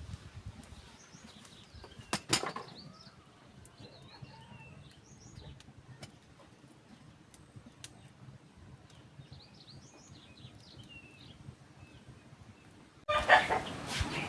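Quiet open-air background with faint, scattered bird chirps and a single sharp knock about two seconds in. Near the end a sudden loud rustling flurry sets in.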